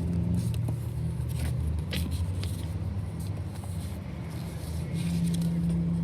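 Steady low hum of the Holden VF Commodore SV6's 3.6-litre V6 idling, with scattered short rustles and clicks of logbook pages being handled.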